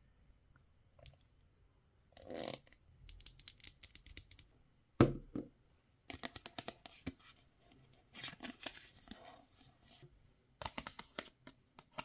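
Hands handling small plastic toy figure pieces and cards: soft rustles and scrapes with many light clicks, and one sharp plastic knock about five seconds in. A quick run of ticks comes near the end.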